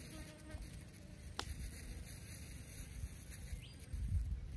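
Wind buffeting the microphone outdoors: a low, rough rumble that swells into a stronger gust near the end, with a single faint click about a second and a half in.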